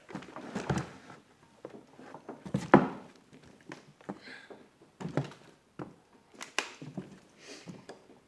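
Scattered knocks and clunks of things being handled and set down on a workbench, the loudest about two and a half seconds in.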